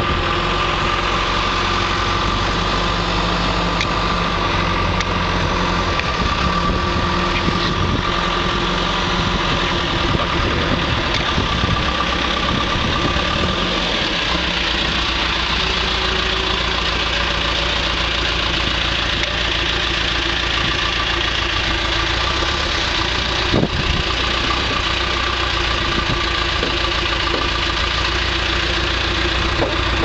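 John Deere 310SE backhoe loader's diesel engine running steadily at idle, with a single short knock about three-quarters of the way through.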